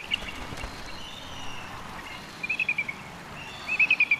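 Bald eagle calling: short trains of quick, high chirping notes that fall slightly in pitch. One train comes about two and a half seconds in and a louder one near the end.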